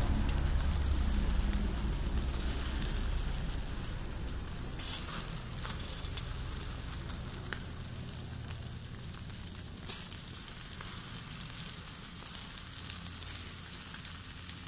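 Glazed chicken drumettes sizzling on a wire grill over a charcoal fire, with a few sharp crackles. A low rumble at the start fades away over the first few seconds.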